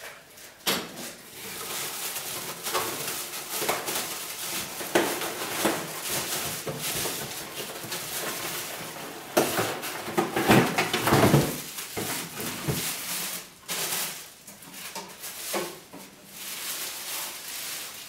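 Cardboard box and plastic packaging rustling and scraping while food processor parts are lifted out, with light clatter and knocks of hard plastic parts. The handling is loudest around the middle.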